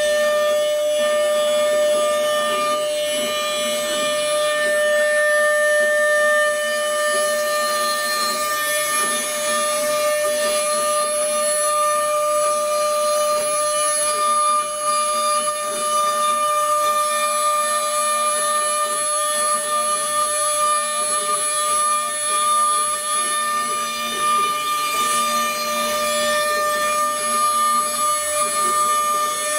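CNC router spindle running at a steady high whine while its fine tapered end mill carves a relief into wood, with a hiss of cutting over the tone.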